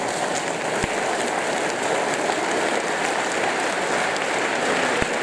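Large audience applauding steadily, a dense, even round of clapping.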